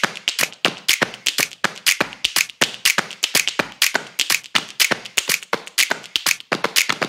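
Glass beer bottles clinking against one another as they ride a bottling-line conveyor: a rapid, irregular run of sharp clinks, several a second.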